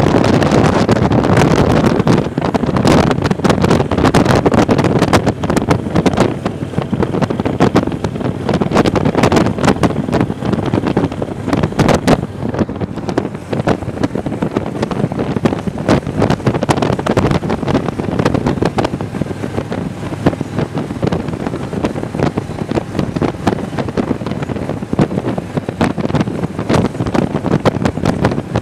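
Wind buffeting hard on the microphone of a camera on a moving motorcycle, with the motorcycle's engine and road noise underneath. The buffeting eases slightly after about six seconds.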